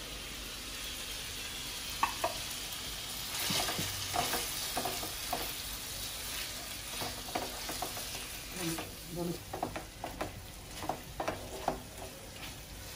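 Chicken sizzling in oil in a nonstick frying pan on a gas stove, while a spatula stirs and scrapes through the pieces in short, repeated strokes that come more often in the second half.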